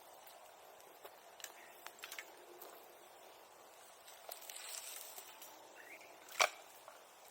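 Bonfire burning with a steady hiss and scattered small crackles, then one loud sharp pop about six seconds in.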